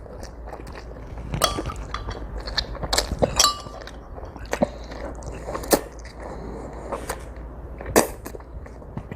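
Eating sounds: utensils clicking and clinking against a dish, several sharp knocks a second or two apart, a couple ringing briefly, with quieter chewing between.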